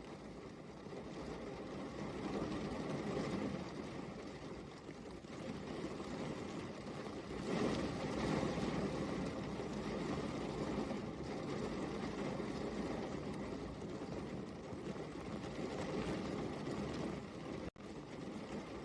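Steady heavy rain, a dense even hiss that swells about halfway through and cuts out for an instant near the end.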